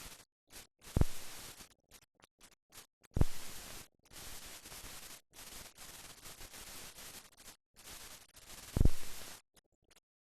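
Hiss and crackle from an old film soundtrack with no other sound on it, cutting in and out in patches. Three loud low pops come about a second in, at about three seconds and near the end.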